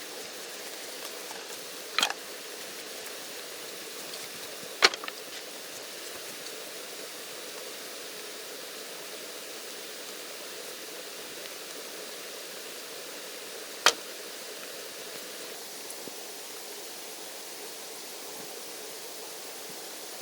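Steady rush of running water, with three sharp knocks spread through it.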